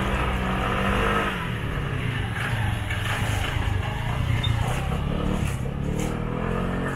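A motor vehicle engine running steadily, then rising in pitch as it revs up near the end.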